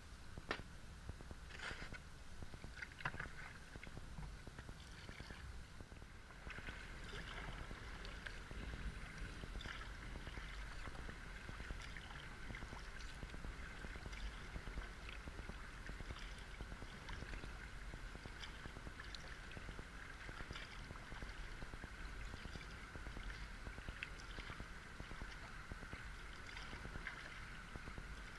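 Water washing and lapping along a kayak's hull as it is paddled, with a few light knocks in the first three seconds.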